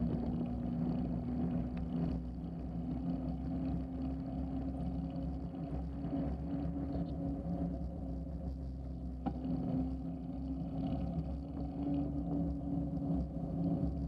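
Bicycle tyres rolling on an asphalt trail, a steady low rumble and hum picked up through a handlebar-mounted camera, with a faint tick about nine seconds in.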